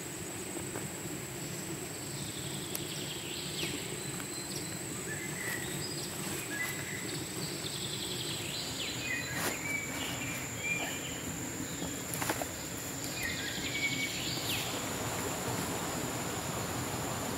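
Forest ambience: a steady high insect whine with birds chirping in short phrases, and a few sharp snaps and rustles as mustard-green stalks are handled and bundled.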